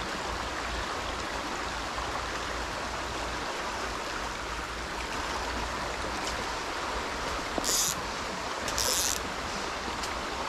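Shallow rocky brook running steadily over stones and riffles. About three-quarters of the way in come two brief high hissing sounds about a second apart.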